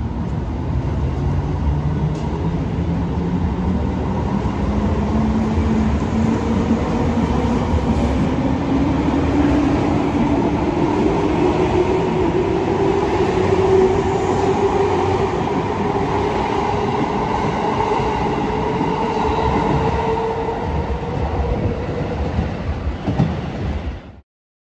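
JR East 251 series electric express train pulling out and accelerating past: a motor whine climbs steadily in pitch over about twenty seconds over the rumble of the cars rolling along the rails. The sound cuts off abruptly near the end.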